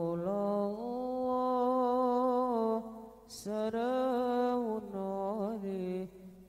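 A male voice sings an Arabic sholawat without accompaniment, holding long drawn-out notes with short breaks between them and a quick wavering ornament near the end.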